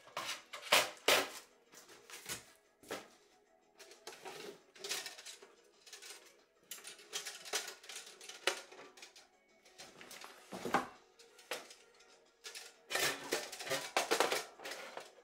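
Thin titanium stove panels and folding legs clinking and rattling as the stove is lifted out and unfolded: a string of short, irregular metallic clatters, loudest about a second in and again near the end, over background music.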